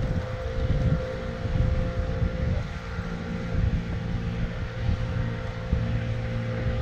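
Wind buffeting the microphone in an uneven low rumble, over a steady motor hum.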